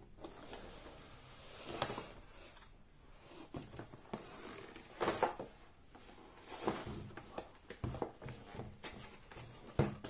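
Large cardboard product box being handled, tilted and turned over on a table: cardboard rustling and scraping on the tabletop, with several knocks as the box edges meet the table, one of the sharpest just before the end.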